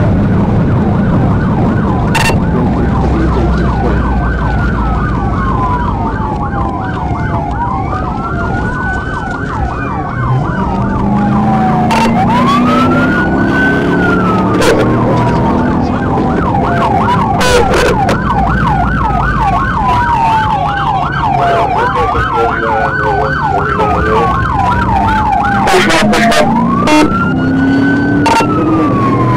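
Police car siren alternating between a fast yelp and a slow rising and falling wail, heard from inside the pursuing patrol car over its engine and road noise.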